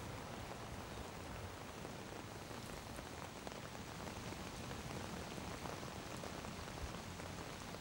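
Faint, steady rushing noise with no distinct events.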